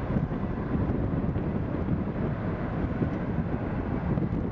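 Boeing 767-300ER's twin jet engines at takeoff power, a steady low rumble as the airliner rolls away down the runway, mixed with wind buffeting the microphone.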